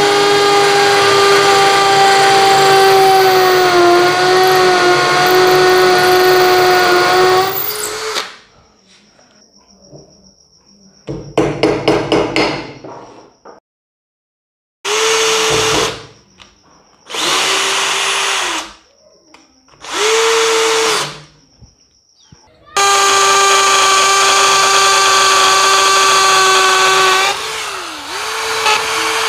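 Bosch GSB 180 LI 18V cordless impact drill drilling into masonry. It runs steadily for about eight seconds, stops, then goes in several short bursts, each motor spin-up lasting about a second, then runs steadily again, its pitch dipping briefly near the end.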